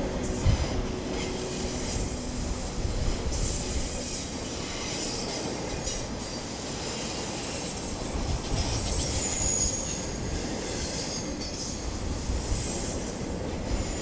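Train rolling across a steel truss railroad bridge: a steady low rumble, with high-pitched wheel squeals that come and go.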